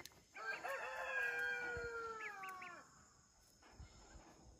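A rooster crowing once: a single long call of about two and a half seconds that drops in pitch at the end.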